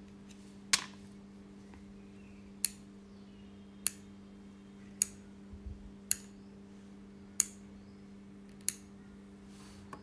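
Black plastic rotary switch clicking through its detent positions as its shaft is turned, seven sharp clicks roughly a second apart.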